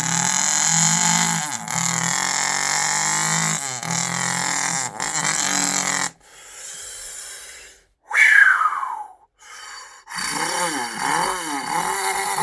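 A man imitating a Detroit Diesel truck engine with his voice: a steady buzzy drone, cut briefly a few times, then it drops away. About eight seconds in comes a falling whistle, and near the end a wavering sound that rises and falls in pitch.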